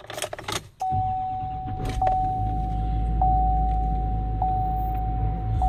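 Duramax turbo-diesel V8 of a 2015 Chevrolet Silverado 2500 HD starting up about a second in after a few clicks, then idling steadily with a steady whine over the low engine hum.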